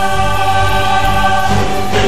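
Background music with choral singing in long held chords; the chord changes about a second and a half in.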